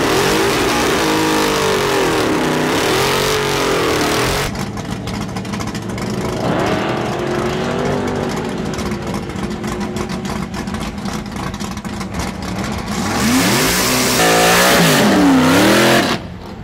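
Drag-racing engines revving, their pitch rising and falling repeatedly as they accelerate. The sound changes abruptly about four and a half seconds in, swells again near the end and then cuts off suddenly.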